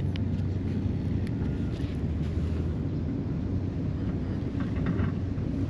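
Steady low engine rumble of heavy construction equipment running on the site.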